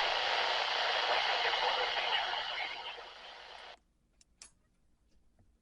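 Weather radio receiver hissing static that fades and then cuts off abruptly about two-thirds of the way in, as the radio goes quiet. A few faint clicks follow.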